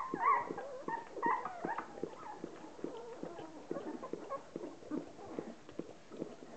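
Ten-day-old Hovawart puppies squeaking and whimpering in high, wavering cries during the first two seconds, while their mother licks them, making a steady run of short licking sounds a few times a second.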